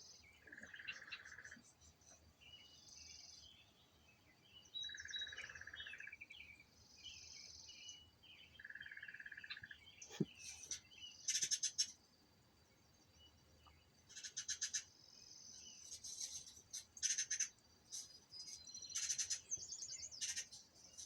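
Wild birdsong played through a TV's speaker. There are three even trills about a second long, near the start, a third of the way in and near the middle, under high twittering. From about halfway there is a run of louder, rapid chirps.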